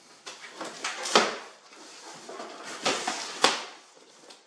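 A large cardboard shipping box being opened by hand: cardboard scraping and rustling as the top flaps are pulled open, with two sharp cracks, one about a second in and a louder one about three and a half seconds in.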